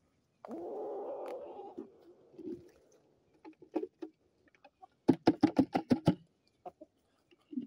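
Chickens close to the microphone: a drawn-out, wavering call about half a second in, then scattered small clicks and, around five seconds in, a rapid run of about ten sharp taps in a second, a beak pecking right by the microphone.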